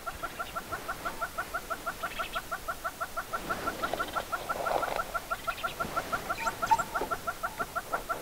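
Hornbill calling a long, steady run of rapid clucking notes, about four a second.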